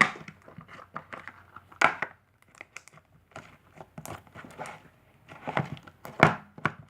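Black glitter butter slime being squished and poked by hand, giving irregular sticky clicks, crackles and squelches.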